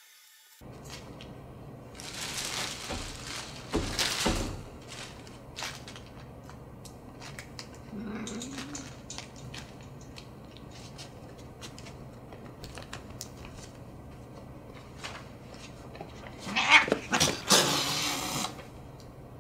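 Cat growling and then hissing and spitting hard near the end, snapping at a puppy. A few seconds in, wire playpen panels clatter.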